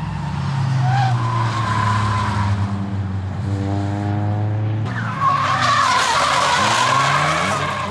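Drift cars sliding through a corner, engines revving hard and tyres squealing. One engine's revs climb just before five seconds in, and after that a louder tyre squeal and hiss take over.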